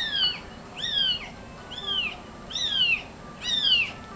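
A kitten mewing over and over: five high mews that each fall in pitch, about one a second, played through laptop speakers.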